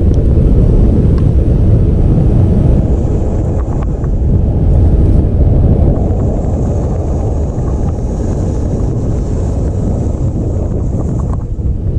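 Wind buffeting the microphone: loud, steady low noise with no break.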